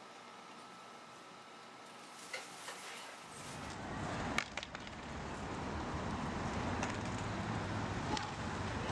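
Quiet kitchen room tone with a couple of light clinks, then steady city street noise with a low traffic rumble. A single sharp skateboard clack comes about four seconds in.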